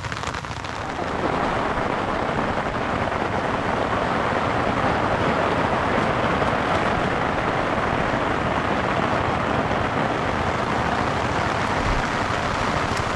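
Heavy rain falling on an umbrella held over the microphone: a dense, steady hiss that swells about a second in and then holds.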